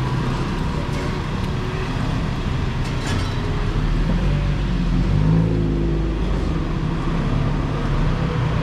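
Steady low roar of a wok's gas burner with egg frying in oil in the wok. An engine-like drone swells and fades about five seconds in.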